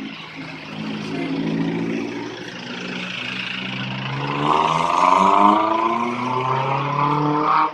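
A motor vehicle engine running, its pitch climbing as it revs up through the second half and louder there, then cutting off sharply at the end.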